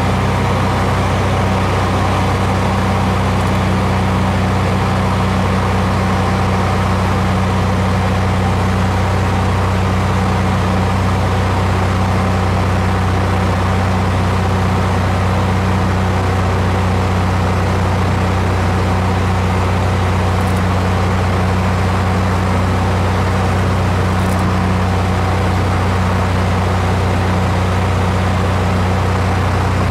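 Steady, loud drone of a light aircraft's engine and propeller heard from inside the cabin, with a deep, even hum that does not change.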